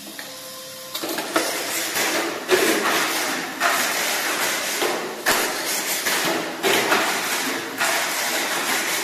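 A Tamiya Mini 4WD car running laps on a multi-lane plastic track: a loud buzzing rush from the small electric motor and the car rattling along the track walls. It starts about a second in and surges sharply every second or so as the car takes the corners and jumps.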